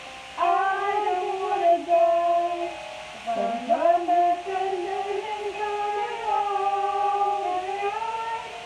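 Several women singing along in loud, long held notes that slide in pitch, with a swoop down and back up about three seconds in.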